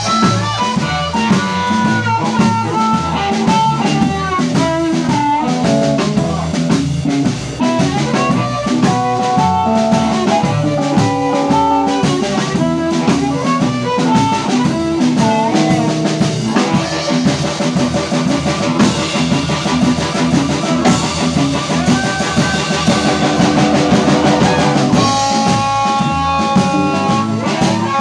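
Live blues band: a harmonica cupped against a vocal microphone plays a melodic line with bending notes over hollow-body electric guitar and a drum kit.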